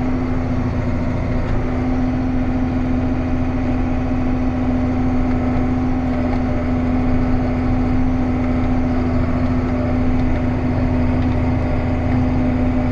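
Farm machine's diesel engine running steadily at a constant speed, a steady drone with a low rumble while the machine is driven at about 6 miles an hour.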